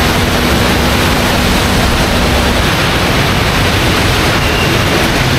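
Steady, loud rushing noise with a low engine rumble from a moving vehicle. A faint steady hum drops out about two and a half seconds in.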